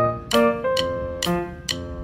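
Background piano music: chords struck about once a second, each ringing and fading before the next.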